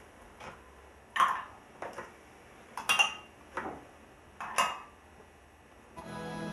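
Teaspoon and sugar lumps clinking in an enamel coffee mug: several short, sharp clinks at uneven intervals. Music comes in near the end.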